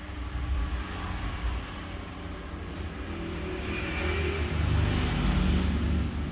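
A motor vehicle engine in passing traffic, rising in level and loudest about five seconds in before it fades.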